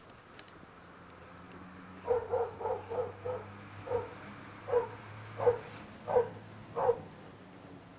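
A dog barking about ten times in a row, quick at first and then spaced out, about one bark every two-thirds of a second near the end.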